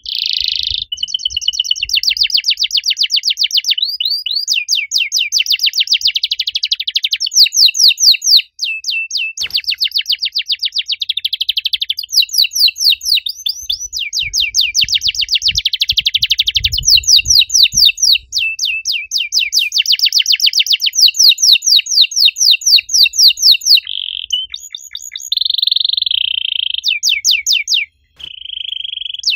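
Domestic canary singing a loud, long song of fast high trills, one rapid run of repeated notes after another with only brief breaks.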